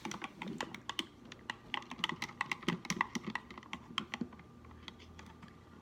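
A spoon stirring water in a small plastic toy toilet, tapping and scraping against its sides in a rapid, irregular run of light clicks that thins out near the end.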